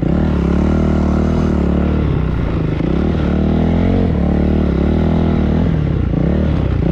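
Honda CRF dirt bike's single-cylinder four-stroke engine running at low speed, its pitch rising and falling gently with small throttle changes.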